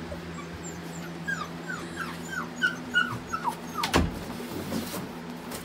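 An 8-week-old golden retriever puppy whimpering from inside a cardboard box: a run of about nine short, high squeaks, each falling in pitch, about three a second. About four seconds in comes a sharp knock as the box flaps are pulled open.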